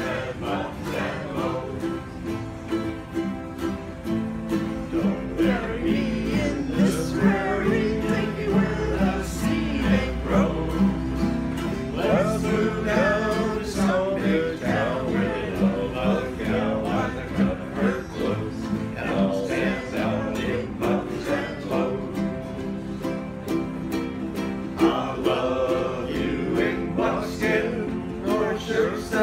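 Several ukuleles strummed together in a steady rhythm, playing chords as a small ensemble.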